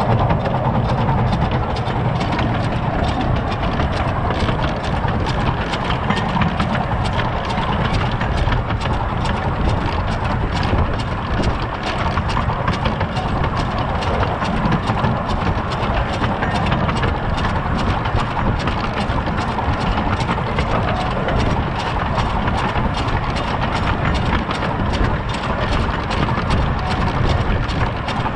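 Miniature 15-inch gauge steam train, hauled by a 1920 Albert Barnes 4-4-2 locomotive, running along the track and heard from the front buffer: a steady rumble with rapid clicking of the wheels over the rails and joints.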